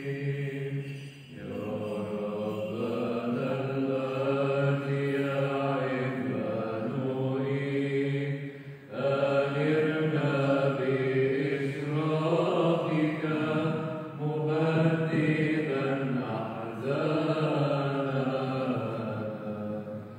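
Byzantine Orthodox chant sung in Arabic: a melismatic melody over a steady low held note, in long phrases with brief breaks between them.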